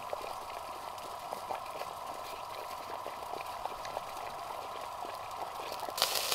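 Wood-fired Kelly Kettle coming to the boil: a steady rushing boil with the fire in its base crackling in small, irregular pops. A louder hiss starts suddenly near the end as the water begins bubbling over.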